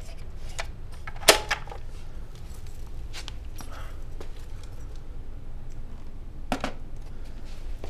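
Plastic clicks and knocks from a toy Nerf blaster being handled: one sharp knock about a second in, another near the end, and faint ticks between.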